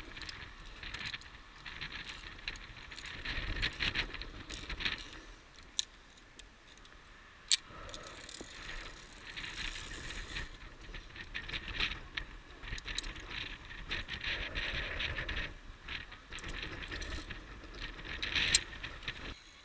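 Via ferrata lanyard carabiners clinking and scraping along the steel safety cable as the climber moves hand over hand, with two sharp metallic clicks, one near the middle and one near the end.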